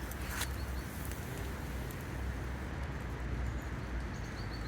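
Steady low rumble and hiss of outdoor background noise, with a short click about a third of a second in and a few faint high chirps near the end.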